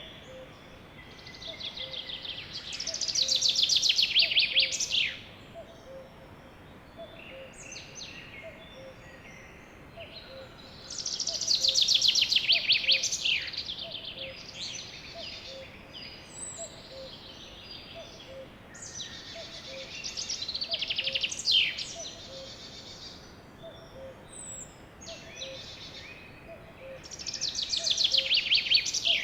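A songbird singing a loud, fast trilled phrase that ends in a quick downward flourish, four times about eight seconds apart, with softer chirps between. A faint low note pulses steadily underneath.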